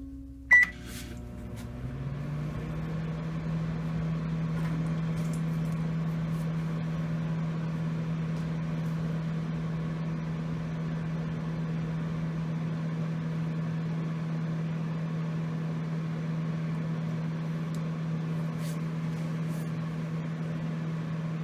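Microwave oven started with a short beep about half a second in, then running with a steady hum that rises slightly in pitch over the first couple of seconds and holds.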